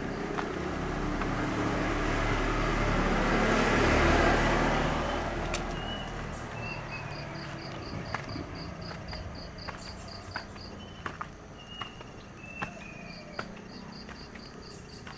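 A vehicle passing out of sight: a rush of engine and road noise that swells to its loudest about four seconds in and fades away within two more. An insect then chirps in rapid high-pitched pulse trains, twice.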